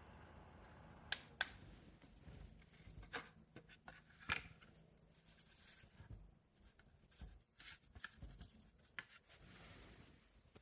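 Near silence with scattered faint clicks and light handling noises, a sharper click about a second in and another about four seconds in.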